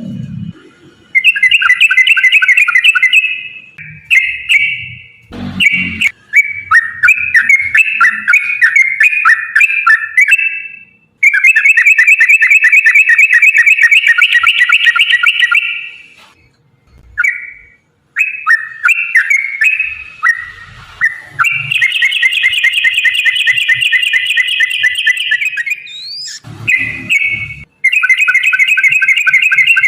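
Yellow-vented bulbul (trucukan) singing in long runs of rapid chattering notes, several bursts of a few seconds each with short breaks between. There are a couple of brief low thumps, one about five seconds in and one near the end.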